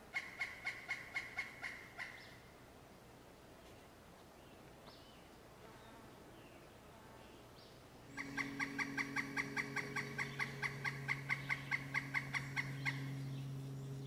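Pileated woodpecker calling: a run of about ten loud, evenly spaced notes lasting two seconds, then about eight seconds in a longer series of about twenty-five notes at some five a second. A low steady hum comes in with the second series and runs on after it.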